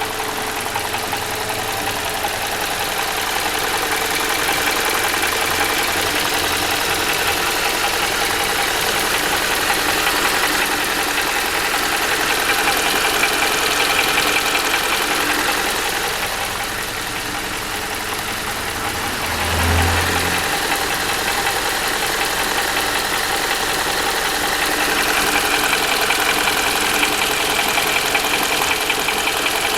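Toyota Valvematic petrol engine idling with a knock, a rapid even tapping throughout. There is a single low thump about two-thirds of the way through.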